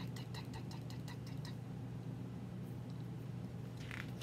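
A woman imitating a jackhammer with her voice: a rapid, even 'dak-dak-dak' of about eight a second, which stops about a second and a half in. Near the end comes a short paper rustle of a book page turning, over a steady low hum.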